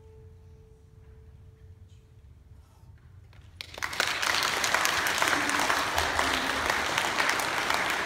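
A last plucked guzheng note rings on and fades away over the first two seconds. About three and a half seconds in, an audience breaks into applause, which then carries on steadily and is the loudest sound.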